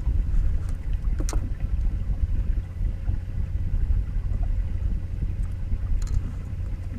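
Steady low rumble of wind and lapping water around a fishing boat, with one sharp click about a second in.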